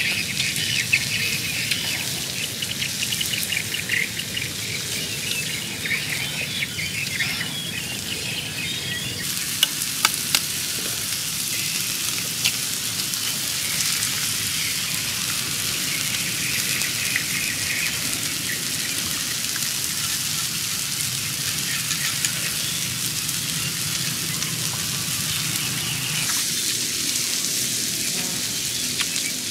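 Beef steaks frying on a hot stone slab over a wood fire: a steady sizzle, with a few sharp pops about ten seconds in.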